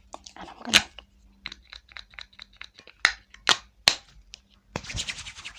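A makeup primer container being handled quickly and close up: a run of light taps and ticks, with four loud, sharp snaps near the start and around the middle, and a short hiss near the end.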